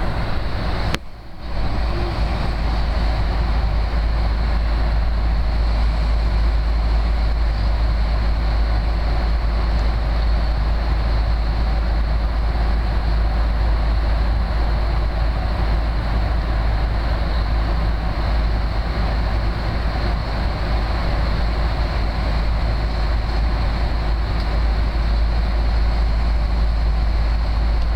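Steady airliner cabin noise in flight: the constant rumble and rush of the jet's engines and airflow heard inside the cabin, with a brief drop about a second in.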